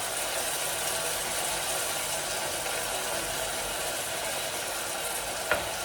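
Onions, green pepper and freshly added tomatoes frying in oil in a pan, a steady sizzling hiss, with a light tap about five and a half seconds in.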